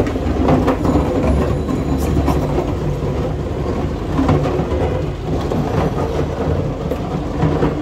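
Eggs washed by hand in a stainless steel sink full of water: the water sloshes and the shells keep clacking against each other and the sink.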